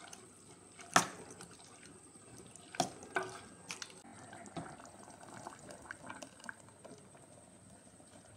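Steel ladle stirring wet chickpea curry in a metal pressure cooker: a few sharp clinks of the ladle against the pot, the loudest about a second in, with wet stirring sounds and lighter ticks later on.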